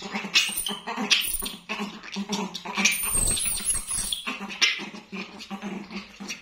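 Young pet monkey squealing in many short, shrill cries while it is pinned down by another monkey during rough play.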